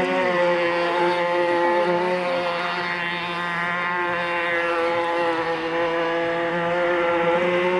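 Radio-controlled speedboat's motor whining steadily at speed as the boat runs across the water, with a slight wavering in pitch.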